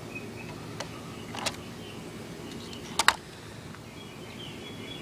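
A few short, sharp clicks over a steady background hiss, the loudest a double click about three seconds in, with faint bird chirps behind.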